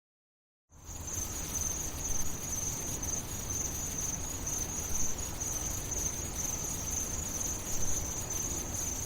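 Steady high insect chirring over a low background rumble, starting about a second in after a moment of total silence.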